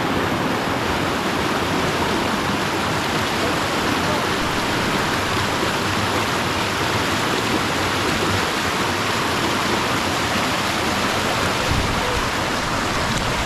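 Steady rushing water.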